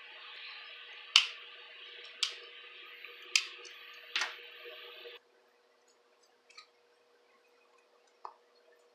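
Sharp taps and clicks from small homemade paper and foam toys being handled and set down on a notebook: four taps about a second apart over a steady hiss that cuts off abruptly about five seconds in, then two faint clicks.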